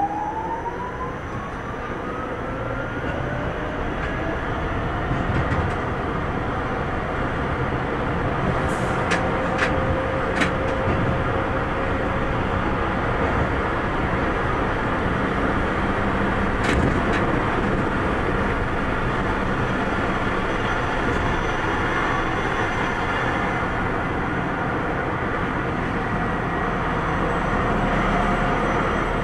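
Tram running on its track, heard from inside the driver's cab. Over the first few seconds the motor whine rises in pitch as the tram accelerates, then it settles into a steady wheel-on-rail rumble. A few sharp clicks come about a third of the way through, and one more a little later.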